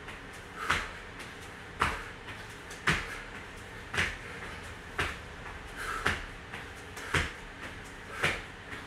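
Repeated landing thuds of tuck jumps on rubber gym floor tiles, about one a second.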